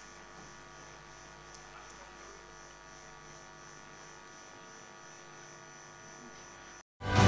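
Steady electrical mains hum over faint room tone. Just before the end it cuts out for a moment and loud music starts.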